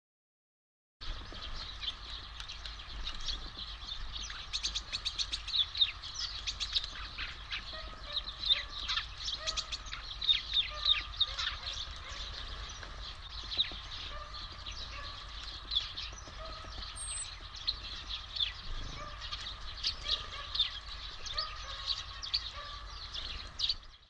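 Many small songbirds chirping over one another in quick, short, high chirps, starting about a second in and running on busily, over a faint low hum.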